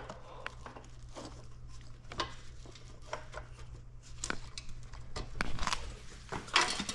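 Scattered light clicks, taps and rustles of plastic wiring-harness clips and connectors being handled and pushed into place, over a steady low hum.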